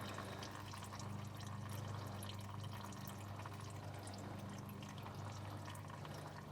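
Old oil pouring steadily out of a 2011 Honda CR-V's open drain hole into a drain pan, with a low steady hum underneath.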